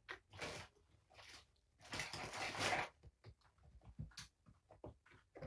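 Handling noises of a small medicine bottle and its dropper: two stretches of rustling, the second and louder one lasting about a second, then a run of small scattered clicks.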